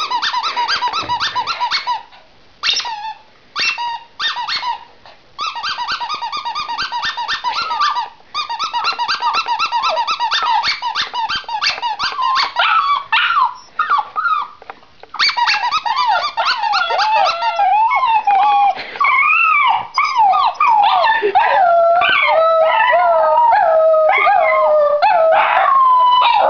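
Rapid, steady-pitched squeaking for the first half, then border terriers howling: long, overlapping howls that waver up and down in pitch, starting about halfway through.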